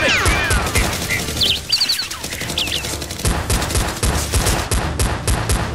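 Rapid gunfire sound effects: a dense volley of shots, heavier and more spaced out from about three seconds in, dubbed over Nerf blasters firing.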